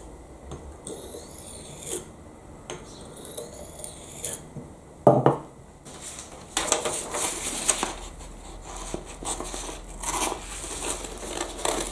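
A knife edge scraped across a hard abrasive block to dull it, with a knock about five seconds in. From about six and a half seconds on comes louder rustling and crumpling as the dulled blade is pushed against a sheet of paper and fails to slice it cleanly.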